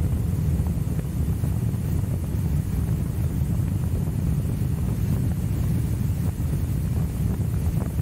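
Riding noise of a Royal Enfield Himalayan's single-cylinder engine pulling a sidecar outfit: a steady engine and road rumble under heavy wind buffeting on the microphone.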